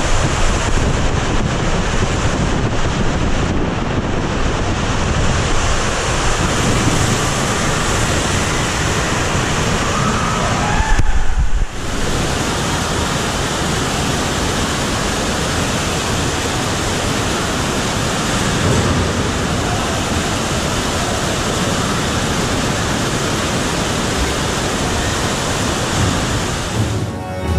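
Water rushing around a raft as it slides down an enclosed raft water slide, with a louder surge of splashing about eleven seconds in. After a sudden break, steady churning water pours down the slide's open run-out channel.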